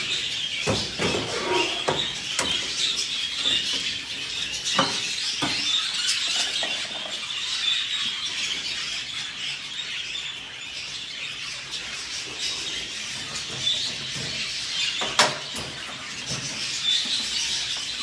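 Many budgerigars chattering and chirping together in a continuous, dense chorus. Several sharp knocks are scattered through it, the loudest about fifteen seconds in.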